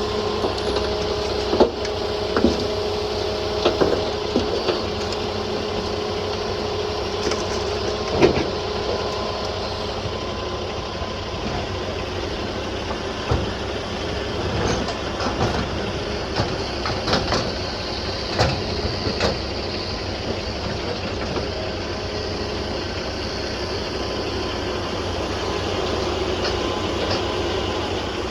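John Deere 210G LC excavator's diesel engine running steadily with a steady whine, while its bucket works bank gravel, giving scattered knocks and clunks every few seconds.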